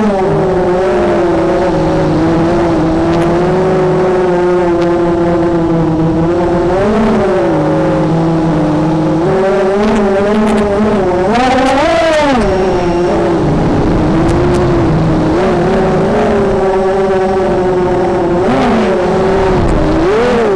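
Cobra 2206 brushless motors and 5-inch props of a 250-size FPV racing quadcopter whining in flight, heard from the onboard camera. The pitch wavers with throttle and swoops up sharply in throttle punches about a third of the way in, just past the middle (the biggest) and near the end.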